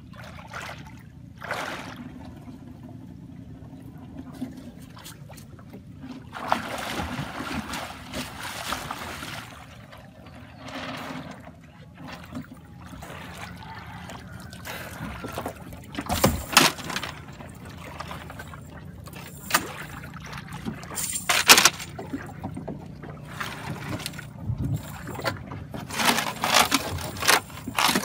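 A cast net being hauled out of a river into a small boat: water splashing and streaming off the net, with sharp knocks and thumps in the boat's hull, most of them in the second half.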